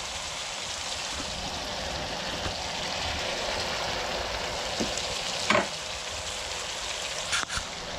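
Spiced curry base of onion, tomato and curry powder with water added, sizzling in a pot over a burner: a steady frying hiss, broken by a couple of short knocks about halfway and near the end.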